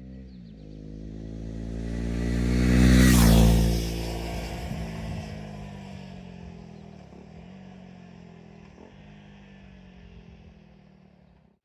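2022 KTM 390 Duke's single-cylinder engine through a LeoVince GP Corsa Evo slip-on exhaust with no dB killer, riding past. It builds as the bike approaches, is loudest about three seconds in where the pitch drops as it passes, then fades as the bike pulls away.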